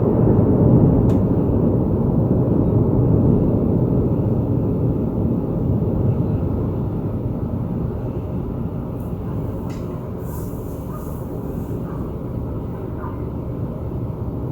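Deep rolling thunder rumble that swells up loud within the first second or so, then slowly dies away.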